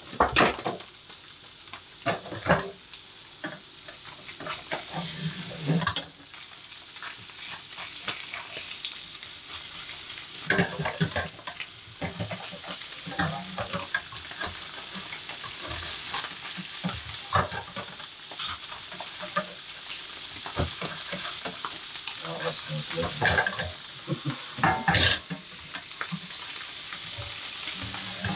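Black bream fillets sizzling in hot butter in a frying pan, with irregular taps and scrapes of a slotted spatula against the pan as the fish is basted.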